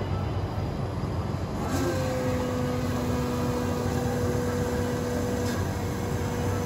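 7-Eleven self-service smoothie machine blending a cup of frozen fruit, its motor running with a steady low hum. A steady whine joins about two seconds in.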